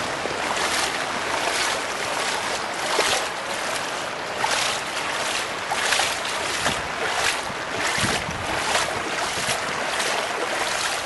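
Bare feet wading through ankle-deep floodwater on a street, each step a splash, about one every three-quarters of a second, over a steady hiss.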